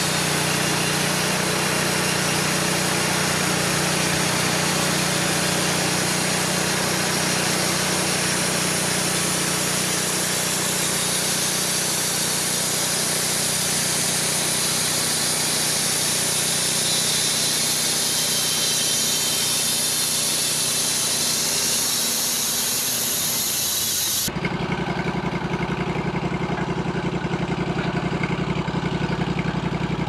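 Portable bandsaw mill with a Honda gas engine sawing through a tulip tree log: a steady high saw hiss over the engine running under load. About 24 seconds in it changes abruptly to the engine idling with an even low pulse.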